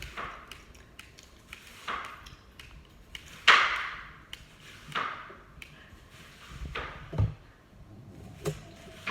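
Glossy slime being squished and stretched by hand, giving irregular wet pops and clicks every second or two, the loudest about three and a half seconds in.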